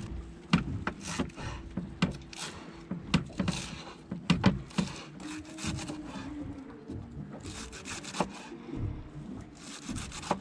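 Knife chopping salad greens, irregular knocks on a cutting surface mixed with scraping and leafy rustling.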